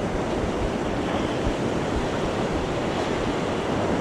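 Ocean surf washing up on a sandy beach, a steady rush of breaking waves, with wind buffeting the microphone.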